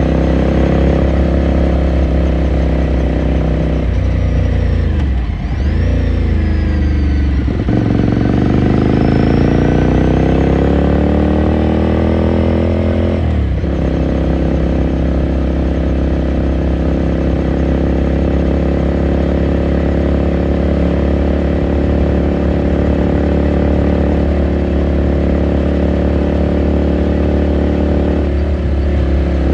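Ducati Scrambler Sixty2's 399 cc L-twin engine heard onboard while riding. A few quick gear changes come about five seconds in, then the engine pitch rises steadily as it accelerates. It drops at an upshift about halfway through and then runs steadily.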